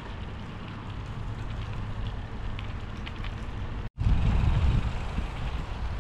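Wind buffeting the microphone during a bicycle ride on a wet path: a steady low rumble with a hiss over it. It cuts out for an instant about four seconds in, and the rumble is louder after that.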